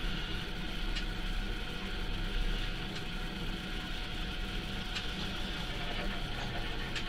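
Steady machine hum with a faint tick about every two seconds.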